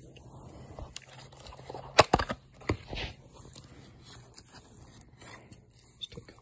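Clear plastic deli cup being handled and its lid pried off: a sharp plastic crack about two seconds in, followed by a few smaller clicks and rustling.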